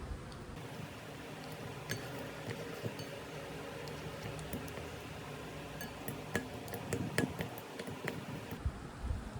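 Scattered light clinks and taps of small hard objects, thickest from about six to eight seconds in, over a steady background hiss.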